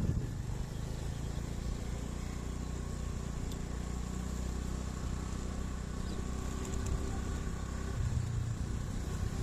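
Motorcycle engine running steadily while riding, a low hum with little change in pitch and a slight swell about eight seconds in.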